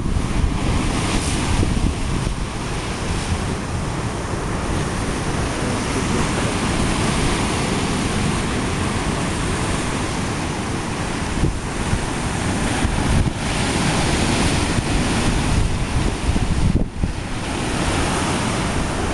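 Rough sea surf breaking and washing over a rocky shore, a continuous heavy rush, with wind buffeting the microphone.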